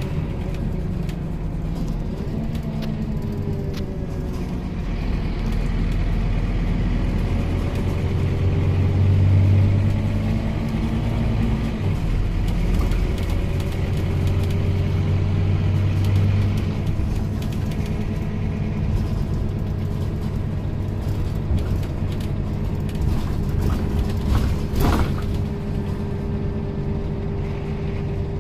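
Scania OmniLink single-deck bus heard from its rear passenger seats while driving: the engine note rises and falls through the gears, with a low rumble that swells twice as the bus pulls harder and small rattles from the interior. A short clunk near the end.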